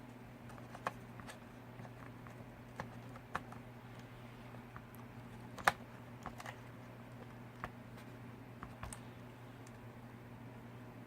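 Scattered small clicks and taps of plastic parts being handled as a replacement gimbal is fitted into a radio transmitter's opened case, with one sharper click about halfway through, over a low steady hum.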